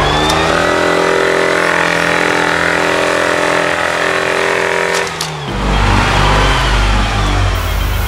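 Off-road 4x4's engine revving hard, held at high revs with the pitch creeping up for about five seconds, then dropping off to a lower, heavier rumble.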